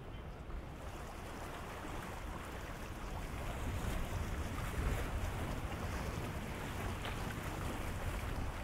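Wind rumbling on the microphone over a steady wash of sea water, growing a little louder about three seconds in.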